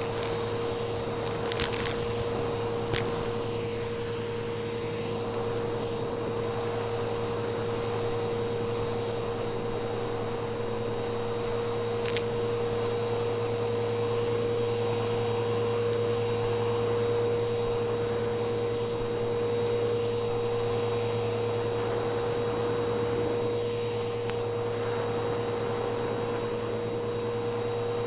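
Vacuum cleaner running with a steady, even whine through a hose and bristle brush tool scrubbing over carpet, sucking up small crunchy debris. A few sharp ticks come in the first three seconds and once about twelve seconds in, as bits rattle up the hose.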